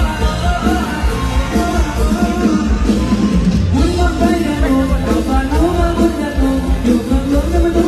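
Live mor lam band music: a singer's wavering melody over a heavy bass and drum beat.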